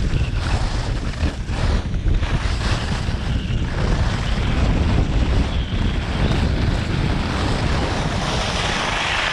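Wind buffeting the microphone of an action camera carried by a fast-moving skier, a heavy steady rumble, with the hiss of skis carving across packed snow that grows brighter near the end.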